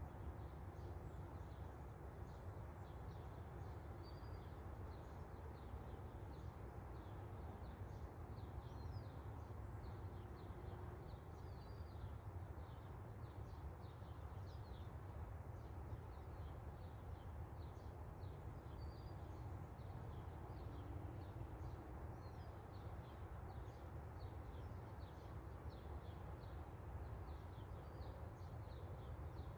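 Many small birds chirping in a dawn chorus, short high calls following each other all through, over a steady low rumble of outdoor noise.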